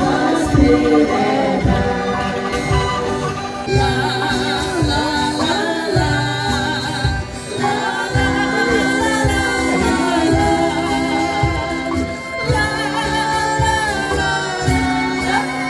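Angklung ensemble playing a song with a woman singing lead into a microphone, accompanied by acoustic guitar, carried over a PA system; a steady beat runs underneath.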